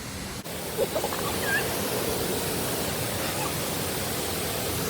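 Steady rushing of a waterfall: an even, unbroken hiss across all pitches. A few faint brief voice sounds come about a second in.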